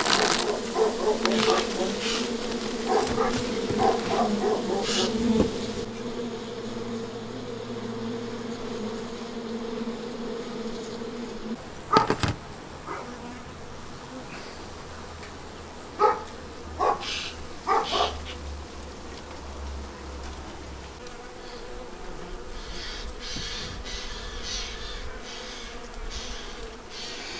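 Honeybees buzzing from an opened hive, a steady hum that is strongest in the first ten seconds while a plastic cover sheet crinkles. A few sharp wooden knocks and clicks follow around the middle as the hive frames are worked loose and lifted out.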